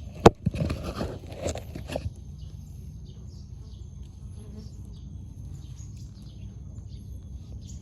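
Handling rustle with a sharp knock near the start, then a faint outdoor background with a thin, steady insect whine and scattered faint bird chirps.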